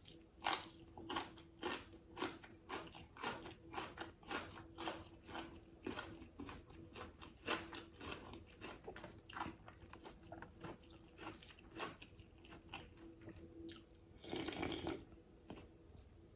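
Close-up mouth sounds of a person chewing and smacking on fish soup with rice: a run of short wet clicks and smacks, two or three a second, with one longer rough noise near the end.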